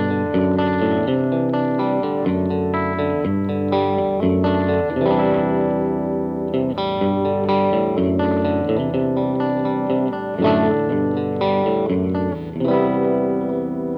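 Electric guitar played through a Line 6 POD HD300 amp modeler, recorded direct: a run of picked notes and chords, ending on a chord struck near the end and left to ring.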